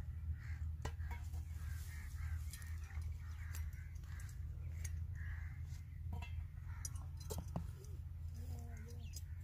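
Metal tongs clicking against a metal pot lid as hot embers are set on top of a sealed biryani pot for dum cooking: a few sharp, separate clicks spread over several seconds. Birds chirp faintly over a steady low hum.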